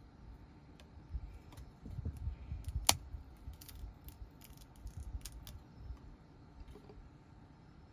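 Peanut shells being cracked and pulled apart by hand, close up: one sharp crack about three seconds in, the loudest sound, then several lighter snaps and crinkles of shell.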